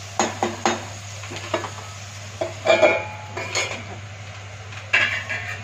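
Steel ladle knocking and scraping against a steel kadhai of vegetables, and a steel lid clattering onto the pan, in a series of sharp metal clanks with brief ringing; the loudest comes a little under 3 s in.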